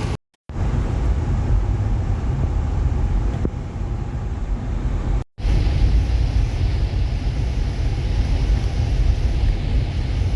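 Car driving: steady low road and engine rumble heard from inside the cabin, cutting out to silence briefly twice.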